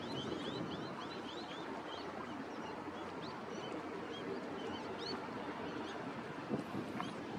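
Small birds chirping over and over in short, high calls above a steady low rumble of wind and harbour noise, with a brief knock about six and a half seconds in.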